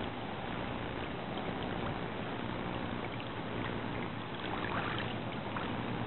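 Kayak gliding through the water: a steady wash of water noise along the hull, with a few light splashes near the end as the anchor buoy is reached.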